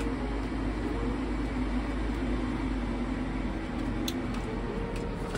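Steady hum of small electric fans running, with a low rumble underneath.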